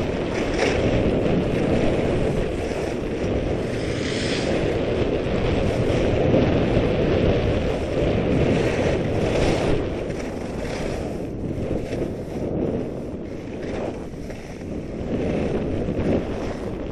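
Wind rushing over a skier's body-worn camera microphone during a downhill run, with the skis scraping over chopped-up piste snow. The scraping swells louder a few times as the skier turns.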